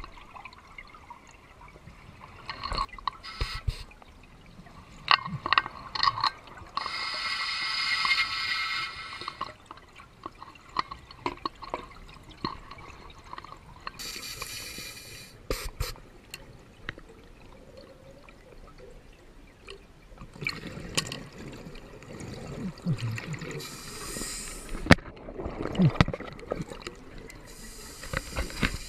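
Scuba diver breathing underwater: several drawn-out hisses of the breathing regulator on inhaling, four in all, with bubbling and clicking from exhaled air between them.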